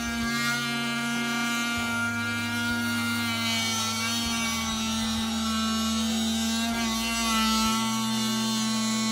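Background music with a held note over a bass line that changes every second or two, with the buzz of an oscillating multi-tool cutting into a wooden window jamb underneath.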